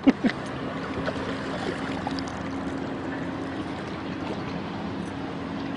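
A boat motor hums steadily at one low pitch over a constant wash of wind and water noise, with a couple of knocks just at the start.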